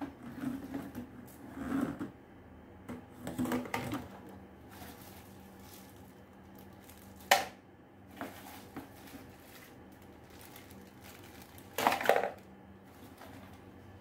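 Handling noises from unpacking a wet & dry vacuum cleaner: hard plastic parts of the motor head and yellow container knocking and rustling. There is a sharp click about seven seconds in and a louder double clatter near the end.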